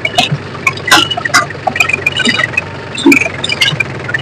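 Powertrac 439 DS tractor's diesel engine running steadily, with irregular clicks, rattles and crackles over it.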